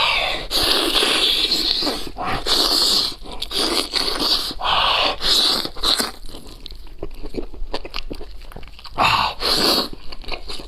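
A person biting into and chewing mouthfuls of spicy braised goat leg close to the microphone, in irregular crunchy bursts with short clicks between them.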